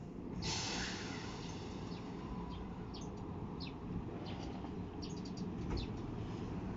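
Small birds chirping in short high calls scattered throughout, over a low steady rumble, with a brief hiss about half a second in.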